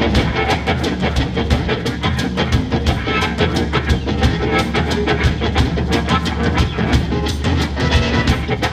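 Live blues band playing: harmonica blown into a cupped handheld microphone, electric guitar and a drum kit keeping a fast, steady beat.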